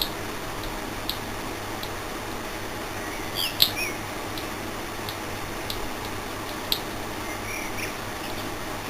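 Microwave oven transformer humming steadily while it overdrives a reversing-valve solenoid coil, with a few faint clicks and short high chirps over it.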